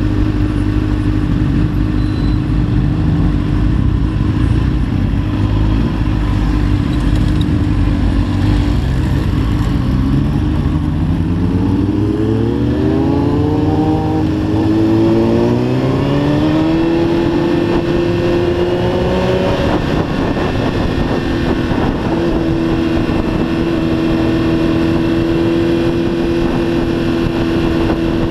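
Sport motorcycle engine holding a steady note while cruising, then climbing in pitch through a couple of rising revs as the bike accelerates in the middle, before settling back to a steady note near the end.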